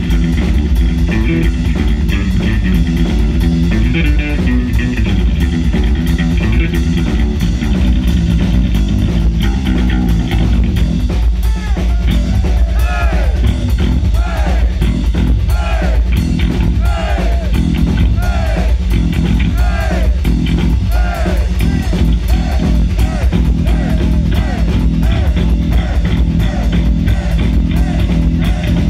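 Heavy metal band playing live, loud: distorted electric guitar, bass guitar and drums. About twelve seconds in, a lead line of repeated bending notes comes in over the band.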